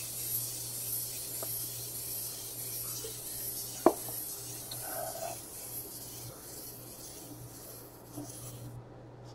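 Faint steady whirring of a battery-powered dancing reindeer toy's motor and gears as it dances, cutting off near the end, with a single sharp click about four seconds in.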